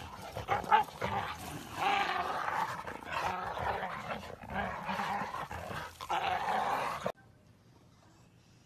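Two bull terriers growling in rough play, in long, wavering stretches, with one sharp, louder sound just under a second in. The growling cuts off abruptly about seven seconds in.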